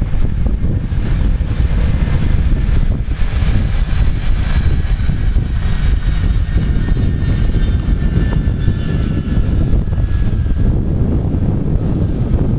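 Boeing 757-200 jet engines whining at taxi power, a faint high steady tone that drifts slightly in pitch as the aircraft turns, under heavy wind buffeting on the microphone, which is the loudest sound.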